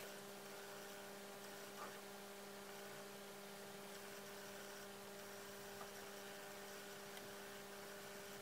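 Quiet room with a steady low electrical mains hum and faint hiss, and a couple of tiny soft ticks.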